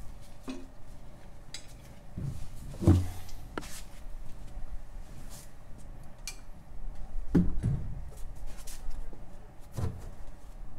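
Scattered knocks and light metallic clatter of tools and parts being handled and set down in a small garage. The heaviest thumps come about three seconds in, around seven and a half seconds, and near ten seconds, with lighter clicks between.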